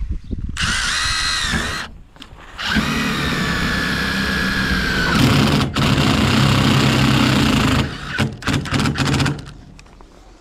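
Cordless drill driving a screw through a metal-faced sandwich panel into the steel frame: a short whining spin, then a longer run of about five seconds that turns lower and heavier about halfway through. A few knocks and clicks follow near the end.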